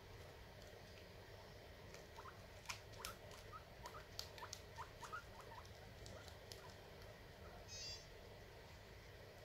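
Guinea pigs eating corn husk: a run of crisp chewing clicks mixed with a dozen or so short, faint rising squeaks over a few seconds, then one brief higher squeak about two seconds later.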